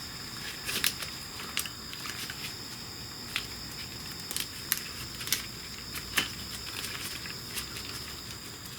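Scattered light clicks and taps at irregular intervals, about a dozen in all, over a steady high-pitched whine.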